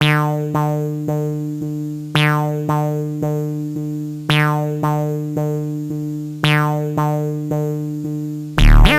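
Electronic music: a synthesizer repeats a short four-note phrase, each note fading away. A loud beat with heavy bass comes in near the end.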